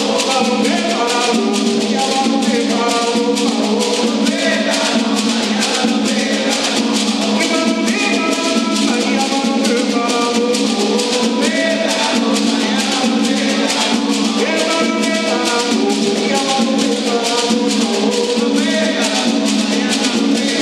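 Afro-Brazilian umbanda percussion ensemble playing live: hand drums and beaded gourd shakers keep a fast, steady beat while a man sings a chant-like melody of held notes.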